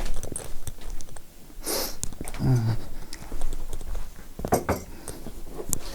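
Scattered clicks and light clatter of small hard objects being handled, with a brief rustle about two seconds in, as a laptop charger and its power cable are searched out and picked up.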